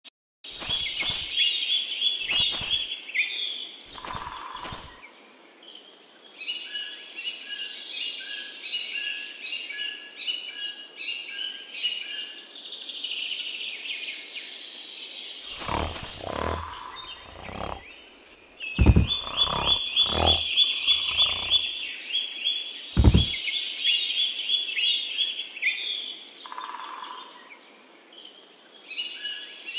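Rapid runs of high, bird-like chirping and twittering calls, with several dull knocks in the second half.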